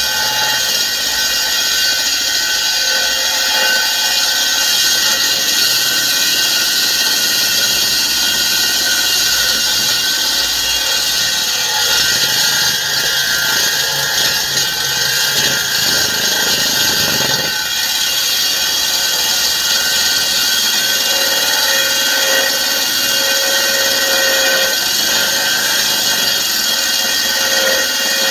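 Parkside PKBM 1800 A1 core drill (1800 W) running steadily under load, its core bit grinding dry into a concrete slab: a continuous loud hiss with steady whining tones.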